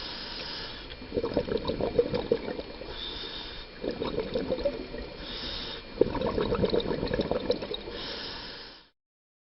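Scuba diver breathing through a regulator underwater: a short hiss on each inhale, then a crackling rush of exhaled bubbles, repeating about every two to three seconds. The sound cuts off suddenly shortly before the end.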